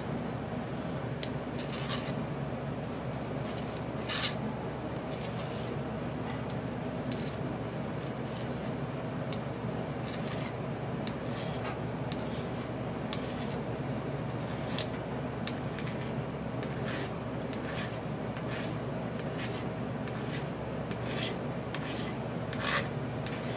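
Flat hand file rasping across metal in many short strokes at an uneven pace, filing down the tops of soft rivets.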